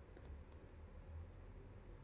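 Near silence: room tone with a faint low hum and a faint tick or two.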